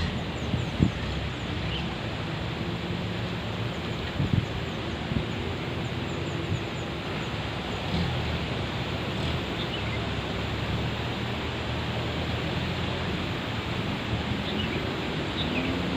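Off-road jeep's engine running steadily under a constant rushing noise, with a few sharp knocks, the loudest about a second in and about four seconds in.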